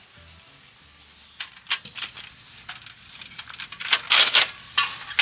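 Tent pegs being hammered into the ground: sharp, irregular knocks and clinks that start about a second and a half in and grow louder toward the end.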